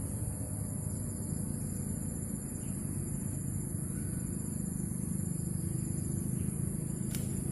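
Steady outdoor background noise: a low rumble with a high, even hiss.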